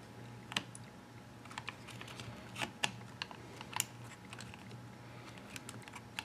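Scattered light clicks and taps, about ten of them at uneven intervals, from fingers handling a circuit board and the plastic case of an opened FrSky Horus radio transmitter, over a faint steady low hum.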